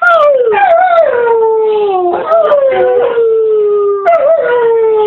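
Dog howling in long, drawn-out, horse-like calls, three in a row, each sliding slowly down in pitch.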